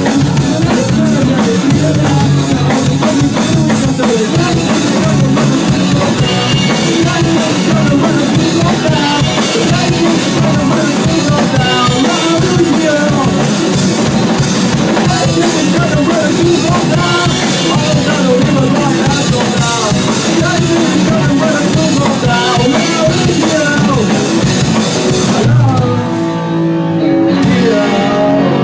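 Rock music: a full band with drum kit and guitars playing without words. About three seconds before the end the drums and dense band sound drop away, leaving guitar chords.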